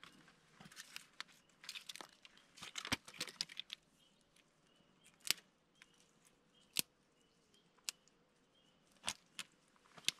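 Dry twigs and kindling being snapped and handled to lay a campfire: a run of crackles and snaps in the first few seconds, then single sharp snaps every second or so.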